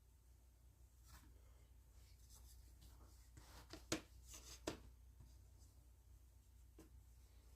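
Near silence with a low hum, broken by a few faint clicks and knocks of handling, the clearest about four seconds in and again just before five seconds.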